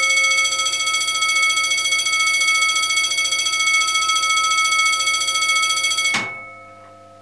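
Railway level-crossing bell ringing continuously, its rapid strokes blurring into one steady trembling ring. It cuts off about six seconds in, and the ring fades away over the next second.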